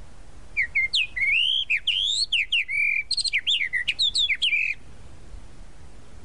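Tropical mockingbird singing one varied phrase of about four seconds: a string of clear whistled notes sweeping up and down, some of them repeated in quick runs, starting about half a second in and stopping near the end.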